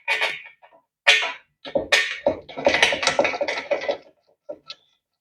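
Steel bed-frame parts clanking and scraping together as a frame piece is fitted and bolted by hand: a string of short knocks and rattles that dies away about four seconds in.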